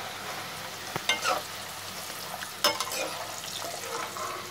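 Potato fries sizzling in hot oil in a metal pot, with sharp metal clinks and scrapes as a slotted spoon and wire skimmer lift them out, the loudest about a second in and near the middle.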